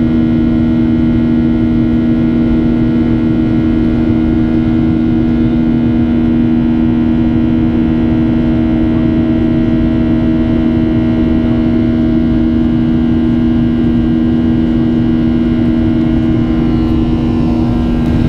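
Boeing 737-800's CFM56-7B jet engines heard from inside the cabin in flight: a loud, steady roar with a constant humming drone.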